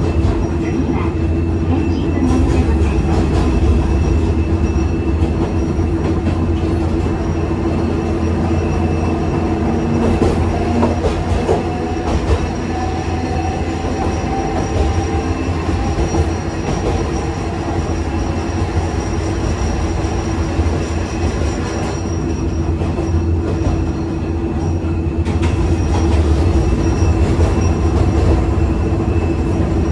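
Interior running sound of a Hankai Tramway streetcar with nose-suspended (吊り掛け) traction motors: a steady motor-and-gear hum over a heavy low rumble, with the wheels clicking over rail joints.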